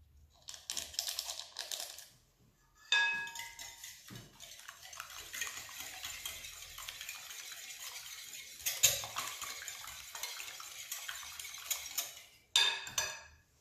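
A wire balloon whisk beating eggs in a glass bowl: a steady, fast, scratchy swishing with the wires clinking against the glass. It starts about three seconds in with a ringing clink, and a few sharp clinks come near the end.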